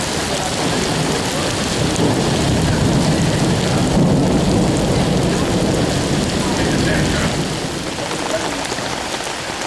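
Heavy rain pouring down steadily, growing louder in the middle and easing a little near the end.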